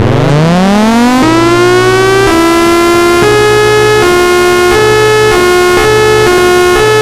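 Federal Signal Thunderbolt 1003A civil-defense siren winding up in a rising whine over about a second, then alternating between a higher and a lower pitch about once a second.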